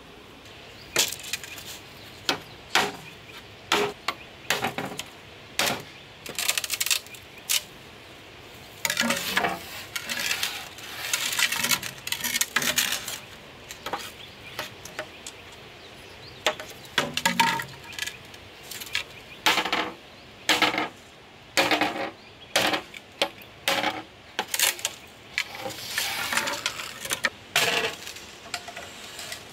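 Knife blade cutting and chopping green bamboo poles resting on a rock: a long series of sharp knocks and cracks, singly and in quick runs, with longer scraping stretches in the middle.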